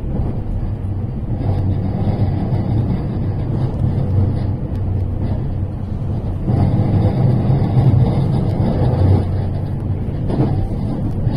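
Electric passenger train running at speed, heard inside the passenger car through the window glass: a steady low rumble of wheels on rails, a little louder for a few seconds around the middle.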